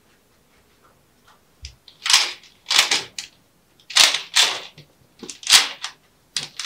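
A curtain being pulled down from its rail: a series of short rattling, swishing bursts of runners and fabric, starting about two seconds in.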